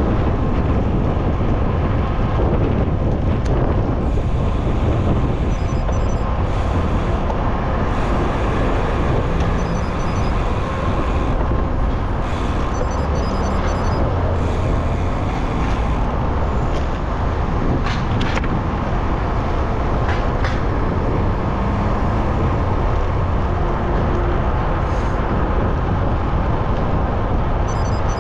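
Steady city traffic and road noise with low wind rumble on the microphone of a moving bicycle. Two brief sharp high sounds stand out about two-thirds of the way through.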